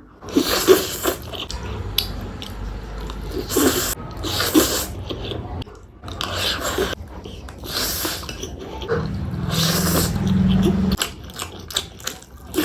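Close-miked eating: chewing and biting, with irregular short, noisy bursts every second or two over a low background hum.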